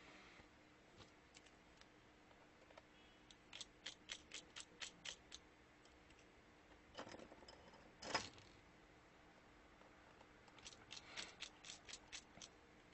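Precision screwdriver working the iPhone 7 Plus's tiny screws: two runs of faint, quick clicks, about five a second, with two louder knocks from tool handling between them.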